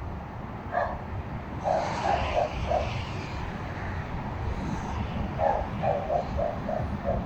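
A dog barking in quick runs of short barks, twice in a row of four or five, over a steady low rumble.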